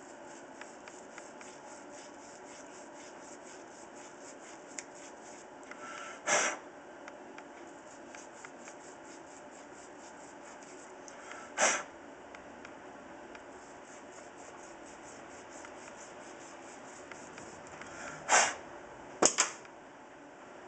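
Small fuel-injector parts being handled and fitted by hand, with quiet rubbing and faint fast ticking underneath. Four short noisy bursts stand out, about 6, 12, 18 and 19 seconds in.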